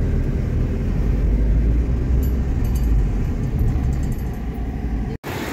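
Steady low rumble of a moving car's engine and road noise heard from inside the cabin; it cuts off abruptly near the end.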